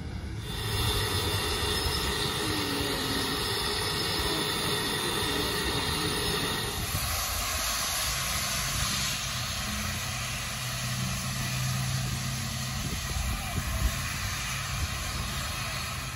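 A 1928 Vulcan Iron Works 0-4-0 steam locomotive running, its noise carrying several steady high tones. About seven seconds in, the sound changes abruptly to a steady low hum.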